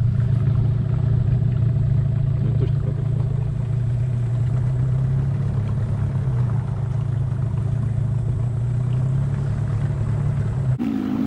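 Vehicle engine running at a steady speed, a constant low drone with no change in pitch. It cuts off abruptly near the end.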